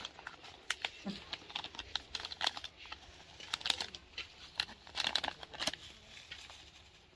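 Crinkling: a run of irregular small clicks and crackles, densest in the middle stretch and thinning out near the end.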